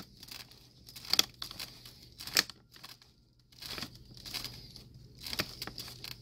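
A Phillips screwdriver tightening screws into a ceiling fan blade and its metal arm until they bottom out, giving a few sharp clicks at irregular intervals, with crinkling and scraping from the cardboard box the blade rests on.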